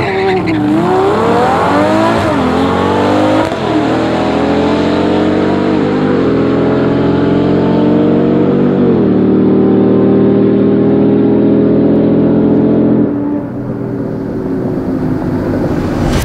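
A Lamborghini Huracán Evo's V10 and a Ram TRX's supercharged V8 launching side by side down a drag strip at full throttle. The engine pitch climbs and drops back at each upshift, five or six times, and the sound falls off a little at about thirteen seconds as the vehicles get far down the track.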